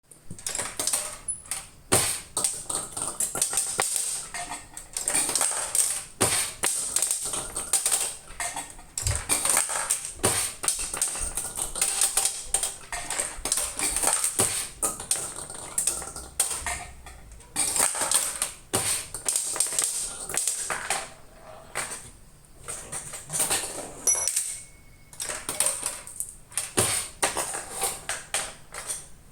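Nishijin pachinko machine test-running after a repair: a dense, unbroken stream of metallic clicks and rattles, with a short electronic beep a few seconds before the end.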